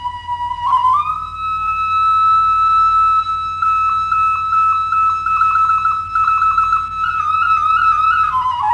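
Bulgarian kaval, an end-blown wooden shepherd's flute, playing a slow shepherd's melody: a held note that slides up about a second in to a long sustained higher note, ornamented with rapid trill-like flicks in the middle, then stepping down near the end.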